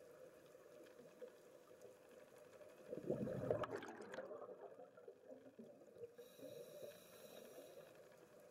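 Underwater ambience through a camera housing, with a burst of bubbles from a scuba diver's exhalation through the regulator about three seconds in, rushing and crackling, then fading away.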